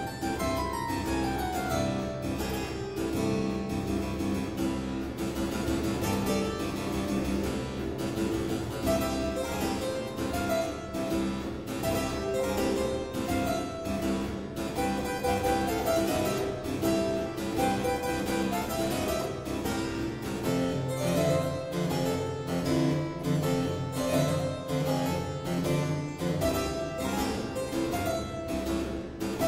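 Harpsichord playing a solo boogie: a fast, unbroken stream of plucked notes, with a quick descending run near the start and the bass notes growing stronger about two-thirds of the way through.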